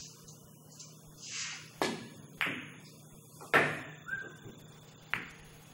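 A pool shot: the cue tip striking the cue ball, then sharp clicks of billiard balls hitting each other and the cushions, four clicks in all, the loudest a little past halfway.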